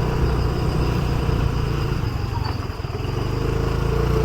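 Motorcycle engine running steadily while it is ridden along a road, with wind and road noise on the microphone.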